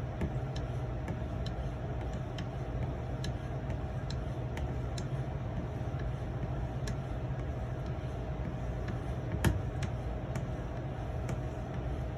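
Light, irregular clicks and taps of a 4000-grit Edge Pro stone working along a knife edge during final sharpening passes, over a steady background hum. One louder knock comes about nine seconds in.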